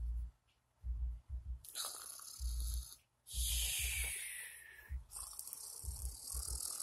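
Cloth rustling and muffled bumps as hand puppets are pushed and rubbed against the phone's microphone during a scuffle, with two long scraping rustles in the middle, the second falling in pitch.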